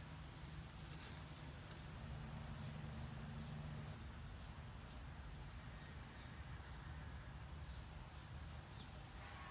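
Faint outdoor ambience with a few short, high bird chirps, one about four seconds in and another near the end, over a low steady hum that stops about four seconds in.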